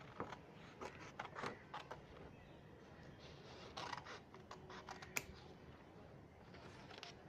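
Red-handled scissors snipping through a sheet of paper: a series of short, faint cuts and paper handling, with a sharper click about five seconds in.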